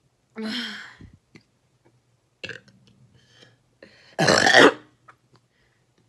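A person burping: a pitched burp about half a second in, then a much louder, longer burp about four seconds in.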